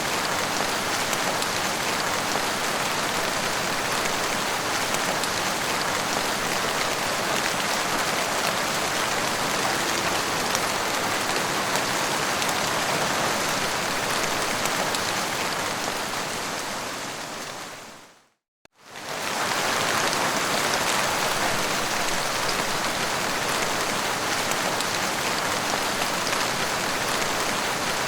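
Steady heavy rain, an even dense hiss of drops. About two-thirds of the way through, it fades out to a moment of silence and then comes straight back.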